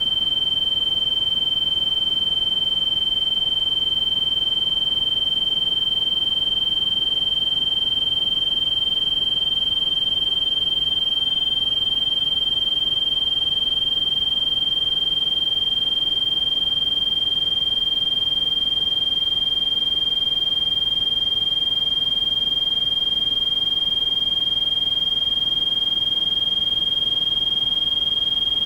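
A continuous high-pitched electronic sine tone, a tinnitus-masking test tone, held steady with its pitch creeping up very slightly, over a faint pink-noise hiss.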